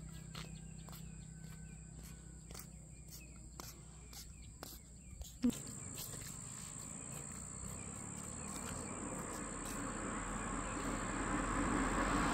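A car approaching along the road, its tyre and engine noise growing steadily louder through the second half, over a steady high insect whine.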